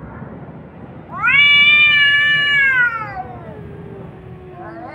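Tomcat yowling at a rival male in a territorial standoff. A loud yowl about a second in rises, holds, then falls away into a low sliding moan. Another yowl starts at the very end.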